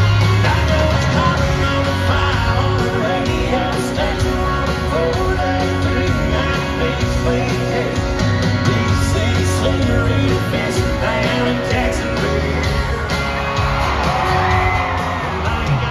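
Live country band with electric guitar, bass and drums playing in an arena, with singing over the music, heard from the audience stands.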